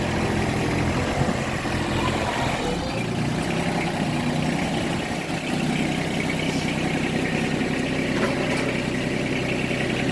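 Tractor engine running steadily at idle, its note shifting about three seconds in.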